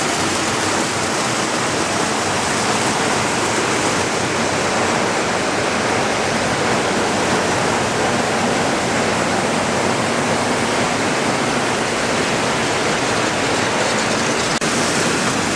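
Steady, loud rushing of a watermelon seed processing line: seeds pouring off conveyor belts while the belt-type colour sorter runs, an even noise with no distinct rhythm.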